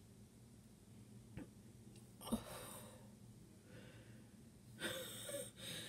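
A woman's breaths and exhales, muffled by the hand held over her nose and mouth, as she reacts in disgust to a rotten-tasting candy: a sudden one about two seconds in, then two louder ones near the end.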